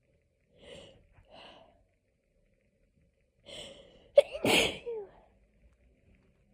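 A person sneezing with hay fever: two short catching breaths, another building breath, then one loud sneeze a little past four seconds in.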